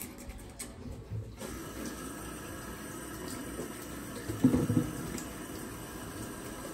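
Bathroom sink tap turned on about a second in, running steadily into the basin, with one brief louder sound over it about halfway through.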